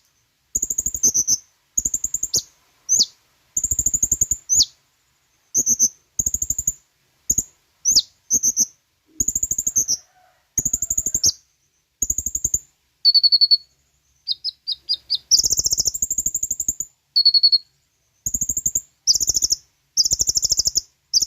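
Kolibri ninja (konin) sunbird singing loudly in short, rapid phrases of high chirps and trills with brief gaps between them, mixing sharp down-sweeping notes with a few steady whistled notes in the second half.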